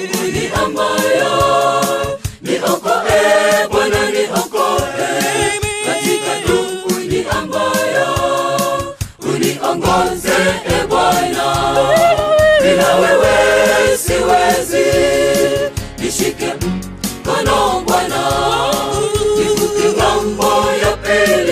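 Mixed church choir singing a Swahili gospel song in parts; a low regular beat joins about halfway through.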